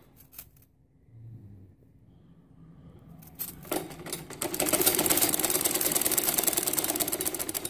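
Domestic sewing machine stitching a seam in lace fabric: a few clicks, a quiet pause, then about three and a half seconds in the machine starts and runs at a fast, even ticking pace until it eases off near the end.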